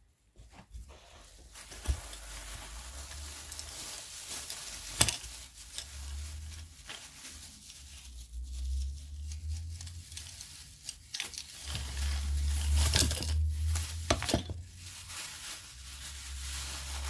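Rustling and crinkling as a container holding screwdrivers is opened and rummaged through, with a few sharp clicks and knocks.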